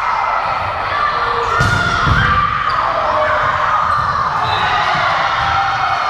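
Game noise in a school gym: sneakers squeaking and skidding on the hardwood court, with dull thuds of feet and ball, loudest about two seconds in, and crowd voices echoing in the hall beneath.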